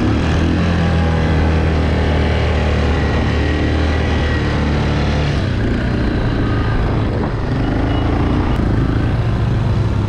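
Yamaha quad bike (ATV) engines running while riding over sand dunes. A steady engine drone changes to a rougher note about halfway through.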